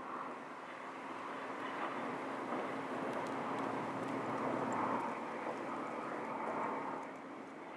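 Container ship passing on a river, its engine making a steady low hum under a rushing noise that grows louder toward the middle and eases off near the end.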